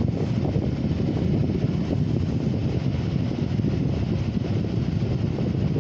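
Steady low rumble of a car heard from inside its cabin, with engine and road noise as the car moves slowly.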